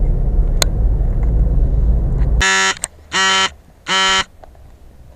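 Low road rumble inside a moving car, cutting off abruptly about two and a half seconds in. Then three loud, short electronic buzzer beeps, evenly spaced over about a second and a half.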